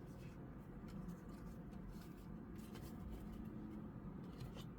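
Faint, scattered light taps and rustles of Pokémon trading cards being handled, over a low steady hum.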